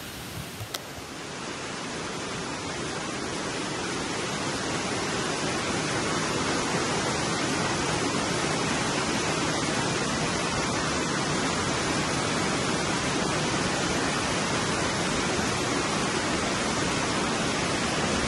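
Steady rushing of the cascading water of Amicalola Falls close by, swelling over the first couple of seconds and then holding even.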